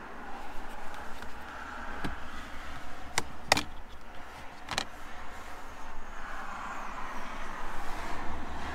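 A few sharp plastic clicks and knocks, the loudest in the middle of the group, as the Renault key card is handled and set into its slot in the centre console, over steady background noise.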